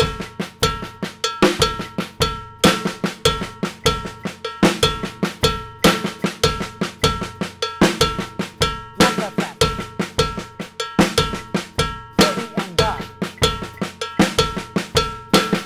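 Drum kit with cowbell playing a slow, repeating Latin-funk groove: cowbell, snare drum and bass drum strokes in a linear pattern, with three extra snare strokes after the accented backbeat on four.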